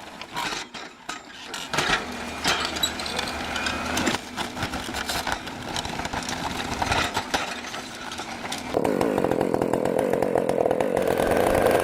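Irregular knocking and cracking for the first nine seconds or so. Then a Husqvarna 395 XP two-stroke chainsaw runs with a steady, even engine note from about nine seconds in.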